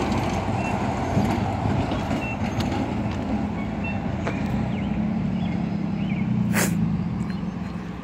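Truck engine running with a steady low drone that swells and then fades near the end, with a short sharp hiss about six and a half seconds in.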